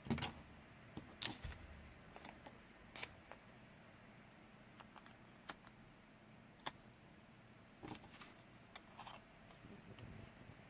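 Scattered light clicks, taps and faint rustles of paper pieces and small craft tools being handled and set down on a work table, about a dozen short sounds spread unevenly, the loudest right at the start.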